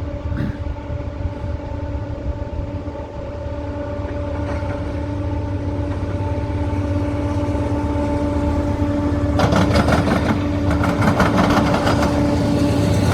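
Freight train approaching: a steady low engine rumble growing gradually louder, then from about nine seconds in a fast, continuous clatter of wheels over rail joints as the cars roll by.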